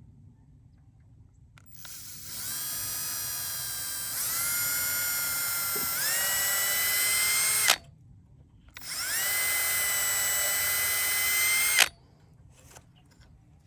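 Electric drill run in two bursts, a motor whine that spins up at each start. The first burst lasts about six seconds and steps up in pitch twice as the trigger is squeezed harder. The second is about three seconds long, and each burst cuts off sharply.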